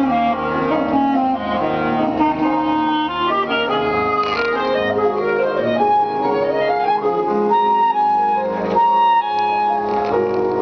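Clarinet playing a melody with quick stepwise rising runs, with other notes held underneath as accompaniment.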